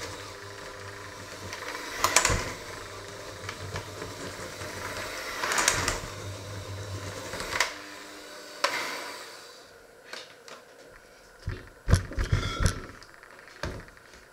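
Electric hand mixer with dough hooks running, kneading a stiff dough in a stainless steel bowl, with the hooks knocking and scraping against the bowl several times. The motor stops about eight seconds in, followed by a few knocks and clatters as the mixer and its hooks are set down on a wooden board.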